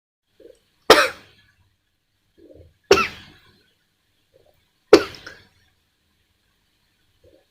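A woman coughing three times, about two seconds apart, each sharp cough led by a short faint sound. The coughing comes on while gulping a fizzy soft drink and burping.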